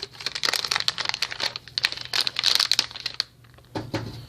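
Anti-static bag crinkling and rustling as it is torn open along its tear strip and handled, in quick irregular crackles, easing off briefly about three and a half seconds in.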